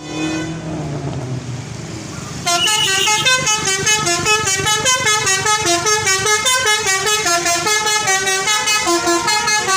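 An Indonesian bus 'telolet' musical horn plays a fast melody of short, stepped notes, starting suddenly and loudly about two and a half seconds in. Before it, the bus's engine is running.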